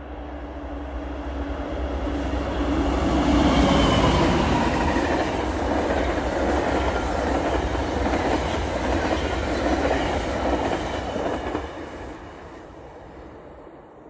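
GO Transit MP54 diesel locomotive pulling eight bilevel coaches past at about 120 km/h. The locomotive comes up loud about three seconds in, its engine note dropping slightly as it goes by. Then comes the steady rush of the coach wheels on the rails, which fades away over the last couple of seconds.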